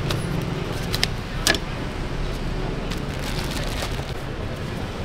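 A foam takeaway box snapping shut with two sharp clicks, about half a second apart, over a steady low hum of street traffic.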